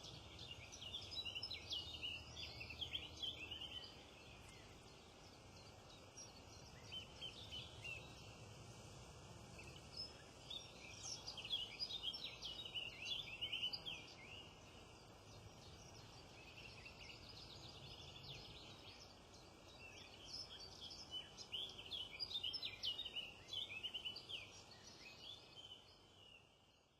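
Small songbirds singing in three long bouts of rapid, high chirps and trills over a faint steady background hiss, fading out at the end.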